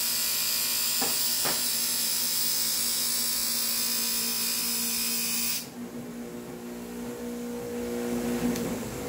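An electric bench buffer runs with a steady motor hum while the steel edge of bypass lopping shears is pressed against its spinning buffing wheel. This gives a loud, even hiss as the wheel knocks the feathered burr off the blade's edge. The hiss cuts off sharply about five and a half seconds in when the blade is lifted away, and the motor keeps running.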